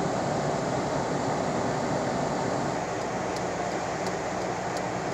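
Steady road and engine noise inside a moving car's cabin. Faint regular ticks, about three every two seconds, begin about three seconds in.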